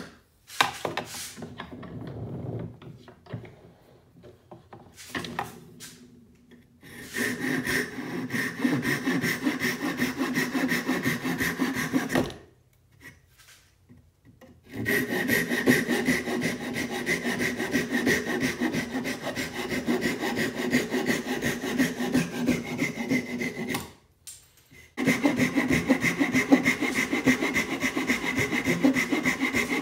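Small hand saw cutting through a wooden lure blank with fast, even back-and-forth strokes. After a few seconds of quieter, irregular scraping, the sawing runs in three long bouts, with short pauses about halfway through and again a few seconds before the end.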